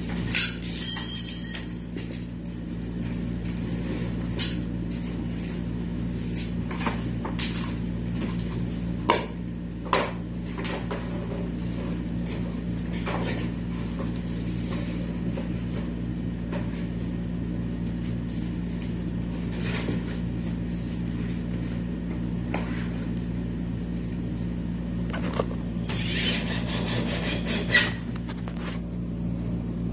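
Scattered knocks and clicks of hands and tools handling cladding materials, over a steady low machine hum. A brief high-pitched rasp comes near the start, and a noisier stretch near the end finishes with a sharp knock.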